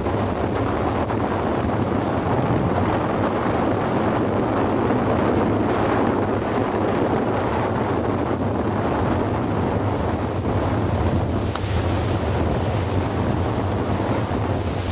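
Small motorboat under way at speed: a steady low engine drone beneath wind buffeting the microphone and water rushing past the hull.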